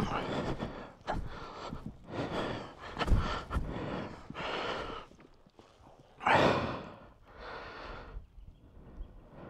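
A person breathing heavily, audible breaths in and out about once a second, with a short lull a little past the middle.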